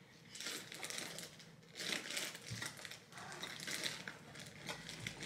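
Rustling and crinkling of plastic and fabric as hands rummage through a duffel bag, in about three bouts.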